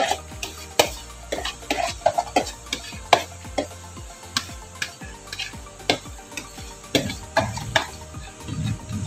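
Metal spoon scraping and clinking against a plastic tub and glass bowls while scooping thick blended spice paste, in irregular taps and scrapes.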